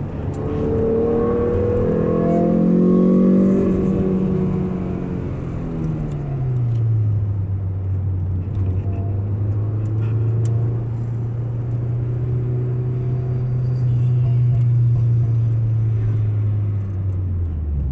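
Mazda 323F BG GT's 1.8-litre four-cylinder engine heard from inside the cabin: the revs climb for the first few seconds, fall away, then hold steady at one constant engine speed before dropping again near the end.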